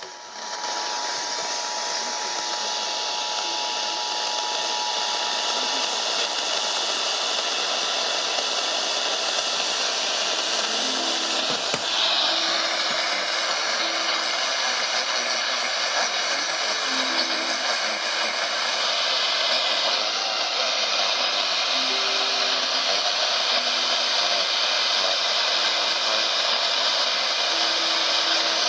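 Steady radio static, an even hiss, with faint snatches of music notes low beneath it and a single click about twelve seconds in.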